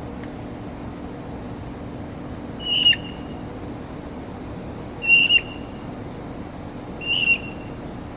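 A bird calling three times, about two seconds apart, each call a short high whistled note with a sharp start, over a steady low background hum.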